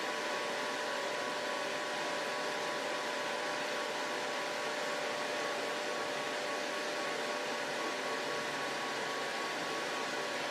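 A 200-watt jewelry laser welder running with a steady whirring hum as its pump draws water into the cooling-system tank.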